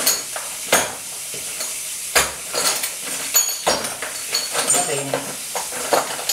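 Water running from a wall tap into a concrete utility sink: a steady splashing hiss. Several sharp clicks and knocks sound at intervals through it.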